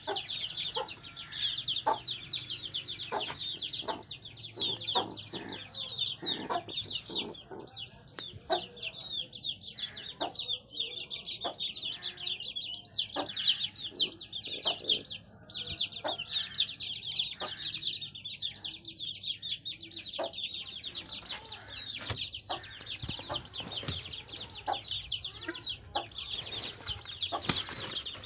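Many birds chirping in a dense, continuous chorus of high calls, with scattered short knocks throughout.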